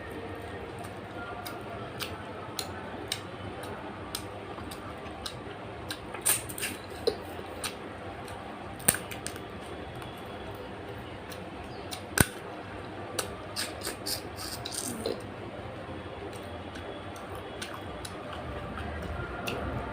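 Close-miked eating: scattered short clicks and smacks of chewing and handling food, a few of them sharp, over a steady background hiss.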